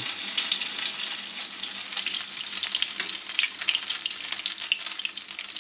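Small potato pancakes (deruny) of grated-potato batter frying in hot sunflower oil in a frying pan: a steady sizzle full of quick small crackles.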